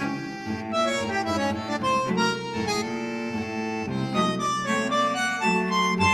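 Background instrumental music with a harmonica-like reed melody over guitar.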